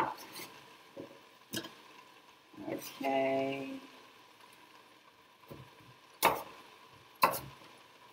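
Kitchen knife chopping sweet potato on a wooden cutting board: a few separate sharp chops a second or more apart, the two loudest near the end.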